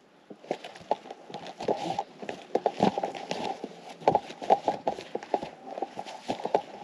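Boots crunching and shuffling in packed snow, with irregular knocks and scrapes as a hand rebar bender is levered around a number 5 rebar on a board.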